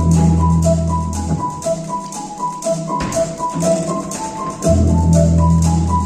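Instrumental music: a quick repeating figure of short, high notes runs throughout, over two long, deep bass notes, one at the start and one near the end, with light ticking percussion.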